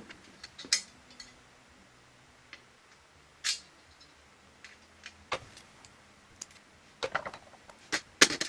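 Scattered light clicks and knocks of small parts and tools being handled, with a quick cluster of sharper knocks near the end.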